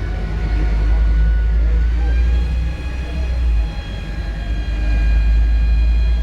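Scania K230UB bus engine running under way, a strong low rumble with steady high-pitched whines from its loud turbocharger and differential; the drone dips briefly about two-thirds through, then picks up again.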